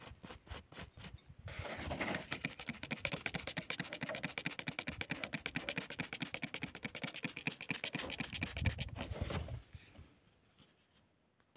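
Plastic trigger spray bottle pumped rapidly, squirting water onto loose dirt: a fast, even run of spurts, several a second. It starts with a few spaced squirts, runs continuously, and stops about nine and a half seconds in.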